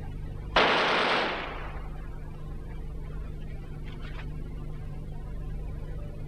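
A single gunshot about half a second in, dying away over about a second, with a much fainter short crack about four seconds in, over a steady low hum from the worn VHS copy's soundtrack.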